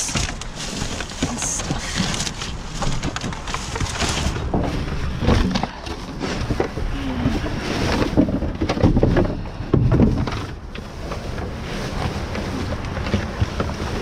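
Rummaging through dumpster trash: plastic bags rustling and cardboard boxes being shifted and knocked about, with irregular clicks and crackles, louder around the middle. Wind buffets the microphone underneath.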